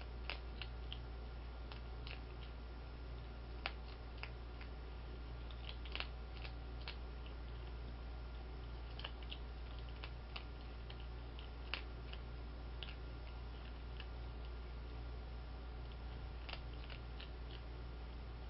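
Skunk eating dry cat food from a bowl: irregular crisp crunches and clicks as it chews the kibble, over a steady low hum.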